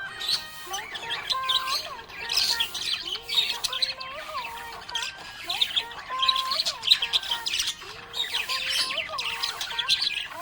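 Budgerigars chirping and chattering in quick, continuous bursts, with a simple melody playing underneath.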